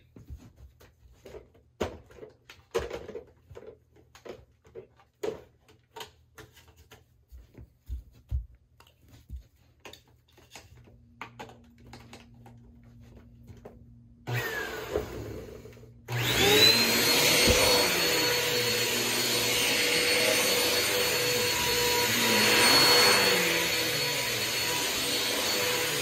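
Bissell PowerForce Compact upright vacuum switched on about 16 seconds in. Its motor spins up with a rising whine, then runs steadily and loudly while pushed over carpet. Before that come scattered light knocks and handling sounds, and a short burst of noise about 14 seconds in.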